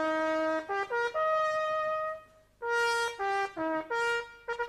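Trumpet playing a short tune of held and shorter notes, with a brief break about two seconds in. The trumpet has just been mended and plays again.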